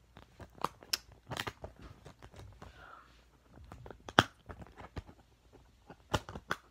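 Plastic clicks and rattles of a disc being pressed and pried off the hub of a Blu-ray case and handled, with one sharp click a little past four seconds in.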